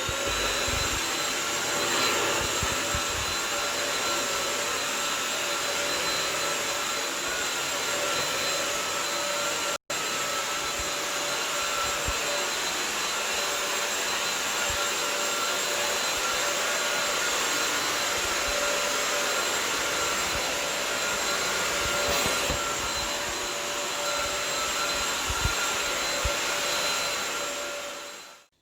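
Carpet-washing vacuum cleaner, filled with hot soapy water, running steadily with a whine on a carpet. The sound cuts out for an instant about ten seconds in, and the machine winds down near the end.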